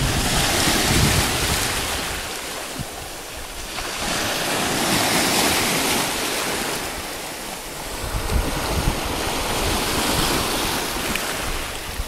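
Irish Sea surf washing over and around shore rocks, the rush of foaming water swelling and easing in three surges, with wind buffeting the microphone.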